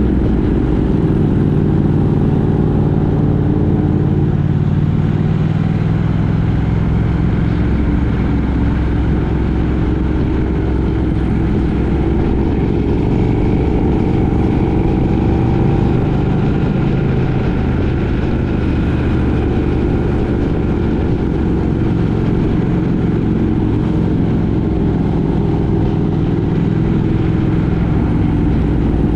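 Vehicle engine running steadily at cruising speed, heard on board during the ride, a constant drone whose pitch drifts slightly up and down, with a wash of travel noise over it.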